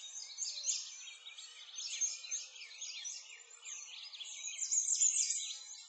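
Many songbirds chirping and singing together, a dense chorus of quick, overlapping high calls and whistles.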